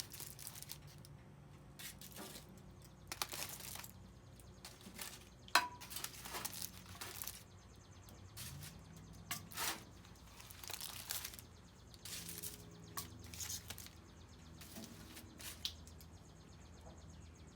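Aluminium foil packets crinkling and rustling as they are handled and set on a grill grate, in short irregular rustles and taps.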